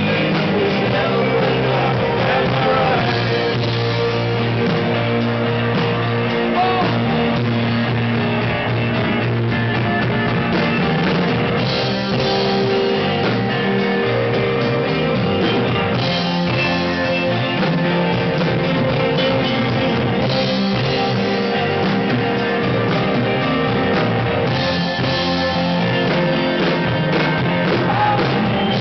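A live rock band playing a song, with guitars, a drum kit and singing. The music runs on steadily and loudly with no break.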